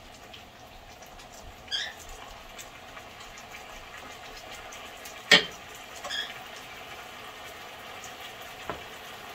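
Cubed chicken frying in a skillet with a steady low sizzle while it is stirred with a wooden spoon. One sharp knock about halfway through, a smaller click near the end, and two short high squeaks.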